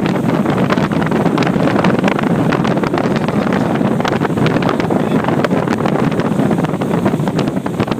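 Wind blasting the microphone aboard a motorboat under way, over the rush of water along the hull and the boat's motor, with many small crackles and knocks.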